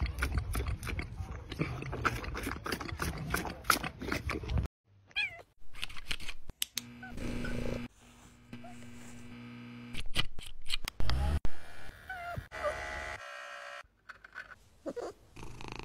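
Wet sucking and smacking as a white tiger drinks from a bottle, then after a cut a domestic cat meowing several times, with short curved calls.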